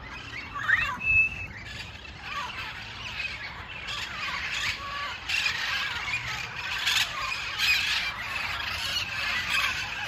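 A flock of wild parrots squawking and chattering as they settle at a roost, many short harsh calls overlapping. The calling thickens about four seconds in.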